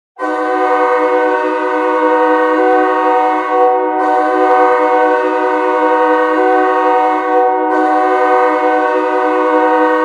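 Ice hockey goal horn sounding one long, steady blast: a loud chord of several tones held without a break, starting sharply just after the beginning.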